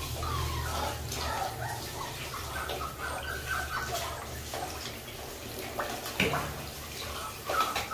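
Water spraying from a handheld shower head onto a wet puppy and splashing into a plastic basin, with a sharp knock about six seconds in.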